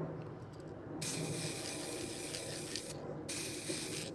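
Aerosol spray-paint can hissing in two bursts: the first about two seconds long starting a second in, the second shorter near the end. A steady low hum runs underneath.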